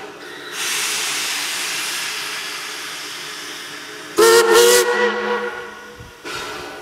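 Steam locomotive sound: a steady hiss of escaping steam, then a loud steam whistle blast about four seconds in that dies away over a second or two, followed near the end by another burst of steam hiss.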